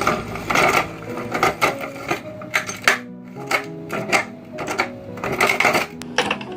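Meat grinder clattering and cracking as it grinds marbles, in irregular bursts of sharp clicks with a short pause about three seconds in, over background music.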